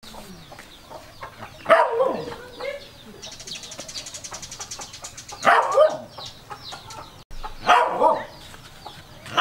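Chickens squawking loudly in four short bursts, a few seconds apart. Between the first two comes a fast, high-pitched rattling buzz.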